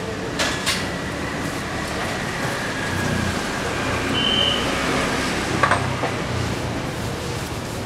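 Steady street traffic noise, with a few sharp clicks of a cleaver blade against a clay mortar dish as garlic and shallots are sliced into it: two under a second in and two more about five and a half seconds in.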